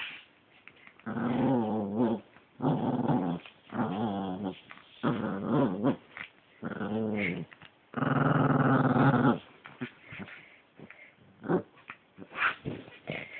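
Small puppy growling in play while mouthing and tugging at a hand: about six growls of a second or so each, the last one the longest, followed by faint scuffling.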